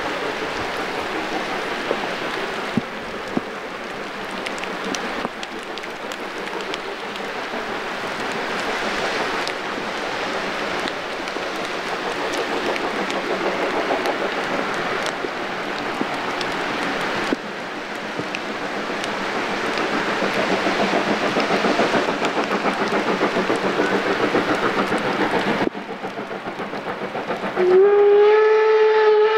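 Steady rain hiss, growing louder toward the end, then a steam locomotive's whistle sounding loudly, one sustained pitched blast about two seconds before the end.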